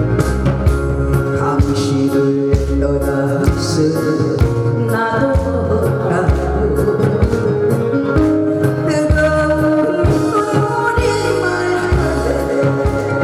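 Korean trot song playing loud through a PA, a backing track with a steady drum beat.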